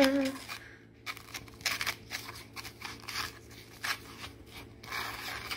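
A fried corn dog being rolled and pressed through granulated sugar on a plate: a run of short, irregular, gritty scratching rustles.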